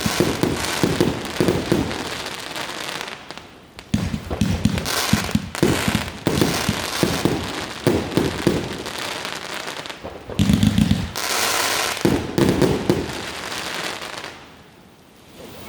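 Fireworks going off: rapid volleys of many sharp pops and crackles, in several bursts separated by short lulls.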